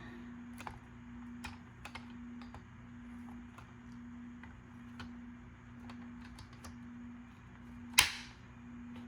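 Light scattered clicks and taps of small plastic parts being handled during reassembly of a car climate-control switch panel, with one sharp, much louder click about eight seconds in. A steady low hum runs underneath.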